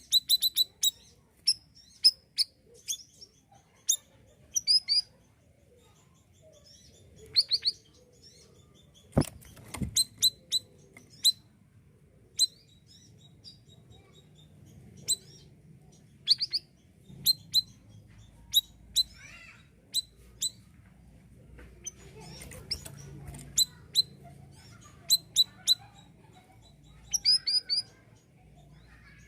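Siri-siri songbird calling repeatedly in short, sharp, high-pitched chirps that come in small clusters. One sharp knock about nine seconds in.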